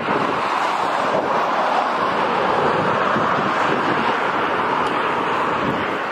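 Steady rush of wind and tyre noise from a car driving at speed.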